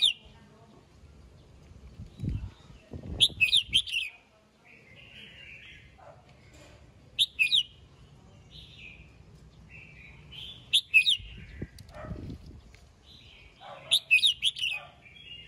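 Red-whiskered bulbul singing: short, loud warbled phrases about every three to four seconds, with quieter notes between them.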